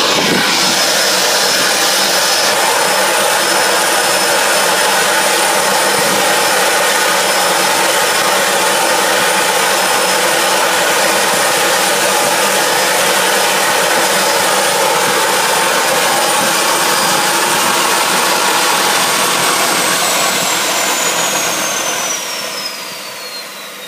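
Homemade gas turbine running at speed, a loud rushing roar with a steady high-pitched whine. Near the end the whine falls steadily in pitch and the noise fades as the turbine winds down.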